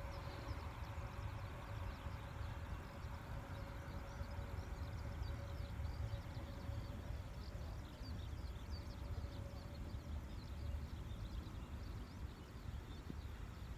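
Distant jet airliner engines at low power as the plane taxis away down the runway: a steady low rumble with a held tone that fades out about halfway through as it draws off. Many small, quick high ticks run over it.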